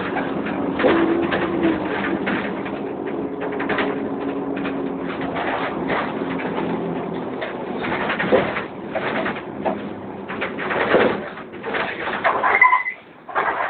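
Dennis Dart bus's rear differential making a steady low hum while the bus coasts off the accelerator before braking, with body rattles over it. The diff noise while not accelerating is unusual for a Dart, whose diff normally goes quiet once the pedal is released. The hum fades about seven or eight seconds in as the bus slows.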